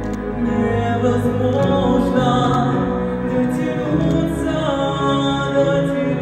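A slow song: a male singer's voice over a sustained, held backing track.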